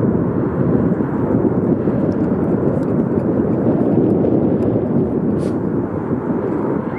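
Wind buffeting the microphone: a steady, loud rush of noise with no clear beat.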